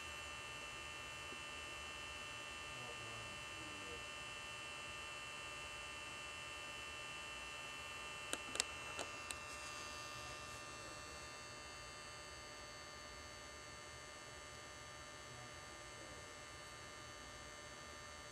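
Steady electrical hum with several high steady whining tones over faint hiss. A few sharp clicks come about eight to nine seconds in, and the hum falls slightly quieter after about ten seconds.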